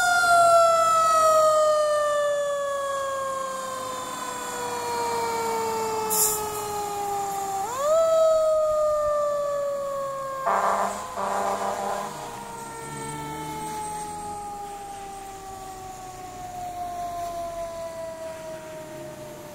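Federal Q mechanical siren on a fire pumper, its wail falling slowly as the rotor coasts down, wound up again about eight seconds in, then coasting down once more and fading as the truck drives away. A brief burst of noise comes about ten seconds in.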